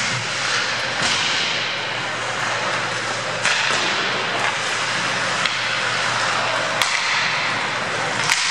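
Ice hockey play: skate blades scraping the ice make a steady hiss, broken by a few sharp clacks of sticks on the puck. The loudest clacks come near seven seconds in and near the end.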